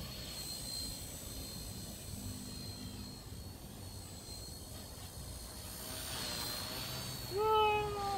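Small electric collective-pitch RC helicopter in flight: a steady high whine from its motor and rotors, wavering slightly in pitch. Near the end a brief vocal sound rises and then holds.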